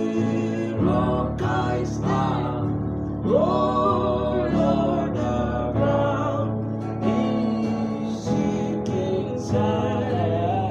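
A hymn sung by a solo voice, with the melody rising and falling over held chords of instrumental accompaniment.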